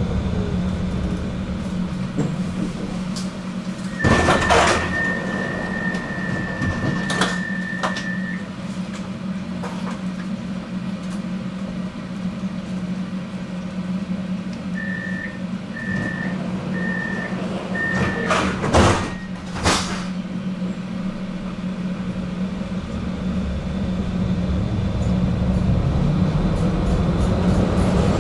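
Inside a tram at a stop, under a steady electrical hum. About four seconds in, the doors open with a clatter and a steady warning tone sounds for about four seconds. Later, four short warning beeps are followed by the sliding doors shutting with sharp knocks, and the tram's running noise builds as it pulls away near the end.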